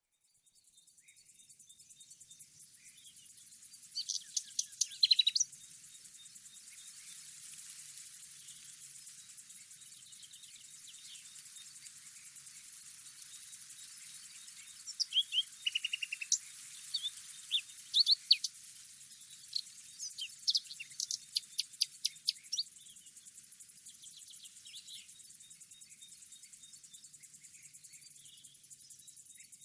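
Wild birds singing and chirping in short scattered phrases, the loudest about four to five seconds in and again through the middle of the stretch, over a steady high-pitched insect trill.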